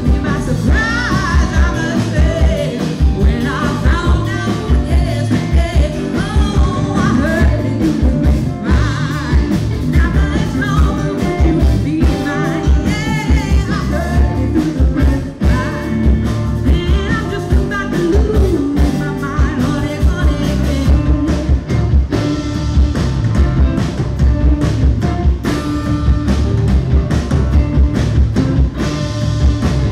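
Live rock band playing, with a woman singing lead over drum kit, electric guitar and bass guitar; the music is loud and continuous, driven by a steady beat.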